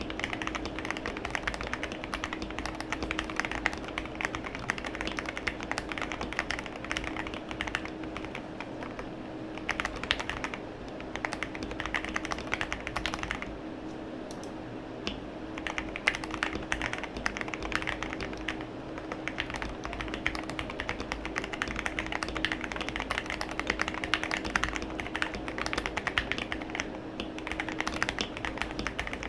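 Typing on a KBD67 Lite R2 mechanical keyboard with lubed Gateron Black Ink linear switches and Drop MT3 keycaps: fast, continuous keystrokes, easing off briefly about a third of the way in and again near halfway. A faint steady hum sits underneath.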